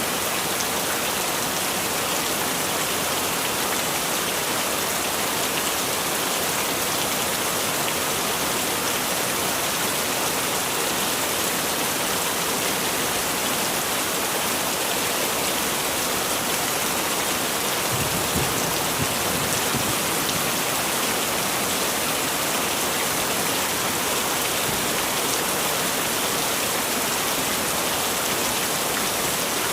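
Heavy rain falling steadily, a dense even hiss of drops on surfaces. A brief low rumble rises under it about two-thirds of the way through.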